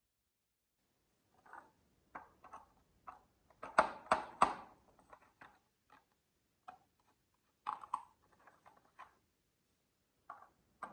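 Marbles clacking and rattling down a wooden HABA slope marble run: irregular clicks and knocks, with three loud sharp clacks in quick succession about four seconds in and a few more small clusters later.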